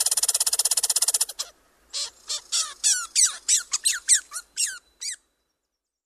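Red squirrel territorial chatter: a fast, buzzy rattle that stops about a second in, then a quick run of about a dozen short squeaky notes, each falling in pitch, ending about five seconds in.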